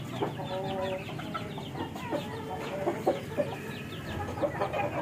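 Chickens calling: a steady run of short, high peeps, with one longer, lower clucking call about half a second in.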